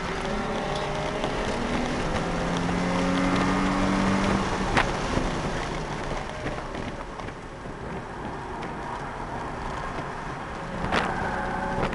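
Nissan 350Z's V6 engine heard from inside the cabin, pulling with a rising note, then dropping away with a sharp click about five seconds in. Several seconds of road and tyre noise follow before the engine pulls again near the end, with another click.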